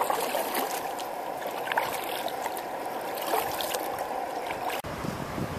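Kayak paddling: the paddle blades dipping and pulling through creek water, with a steady wash of water and a few small splashes and drips.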